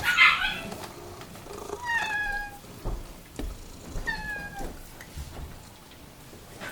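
A pet's short, high-pitched cries, twice, each sliding down in pitch, with a brief high squeak at the very start.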